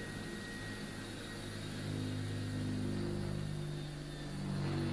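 Electric drill running steadily as it bores pilot holes through the van door's sheet-steel panel from the inside, its pitch rising a little about two seconds in.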